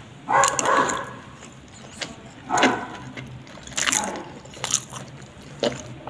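Close-up wet chewing and mouth sounds from eating a spoonful of rice and ground meat, in short separate bursts. A short pitched sound comes about half a second in.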